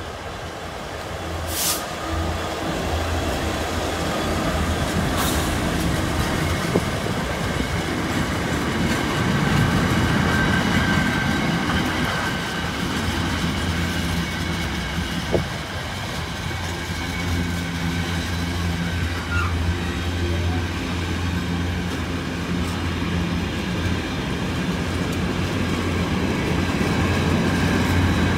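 British Rail Class 66 diesel-electric locomotive passing, its engine running under load, followed by the steady rolling rumble of a long rake of container flat wagons going by, with occasional clicks and clacks of wheels over rail joints.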